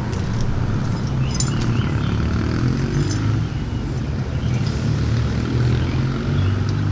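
A steady low mechanical drone, with a few light metallic clicks from handling the metal electrical box and its parts about one and a half and three seconds in.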